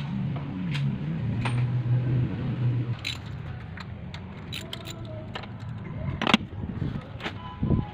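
Irregular metallic clinks and taps of a socket wrench and extension on the engine's timing-cover bolts as they are loosened and handled, with one louder clank about six seconds in.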